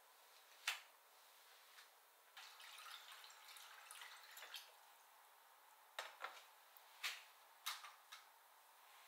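Kitchen faucet running into a glass bowl in a stainless-steel sink for about two seconds, then shut off. A sharp click about a second in, and a handful of light knocks and clinks of dishes near the end.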